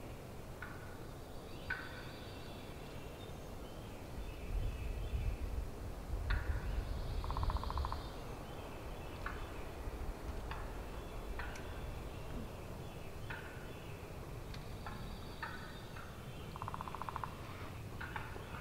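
Wild turkey gobbling faintly twice, about seven seconds in and again near the end, with scattered small bird chirps and a low rumble between about four and eight seconds.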